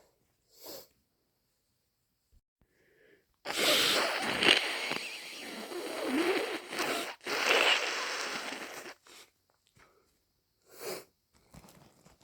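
A person with a head cold blowing their nose hard into a tissue: a long blow starting suddenly a few seconds in, then a second shorter blow after a brief break. There are short sniffs before and after.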